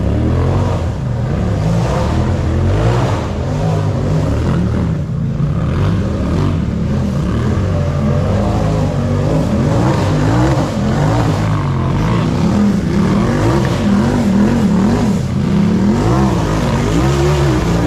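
Racing UTV engine revving up and down over and over, its pitch rising and falling every second or so, louder in the second half.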